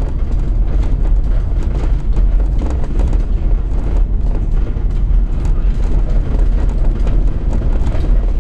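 Inside a small electric minibus driving over cobblestones: a steady low rumble from the tyres on the cobbles, with the bus body rattling and knocking.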